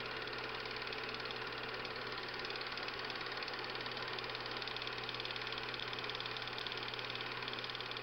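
Film projector running: a steady mechanical whir with a fast, even clatter and a constant low hum.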